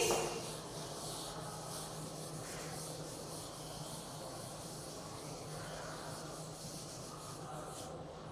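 Chalk scratching on a blackboard as lines are drawn, fairly faint, over a steady low room hum.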